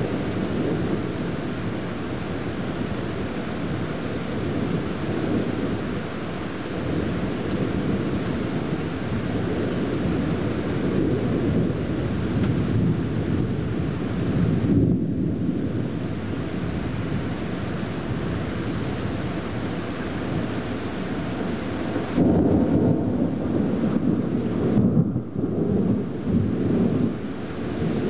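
Steady heavy rain with a rumble of thunder underneath, growing louder for the last several seconds.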